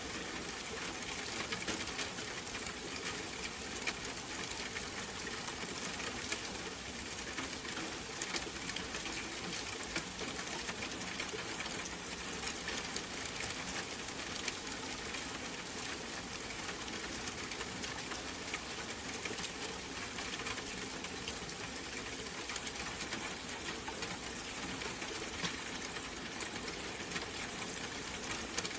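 Steady rain falling, a dense even hiss with many small drop ticks scattered through it.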